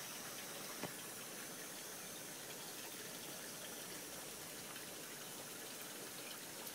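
Steady running-water noise from a goldfish aquarium, with a faint click about a second in.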